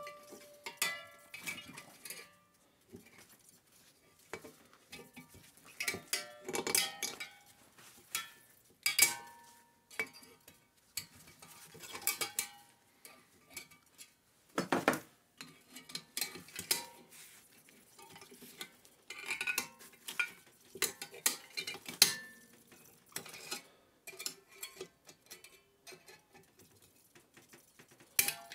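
Irregular metallic clinks, scrapes and knocks of pliers working at a spring inside an opened refrigerator compressor. Some of the knocks ring briefly.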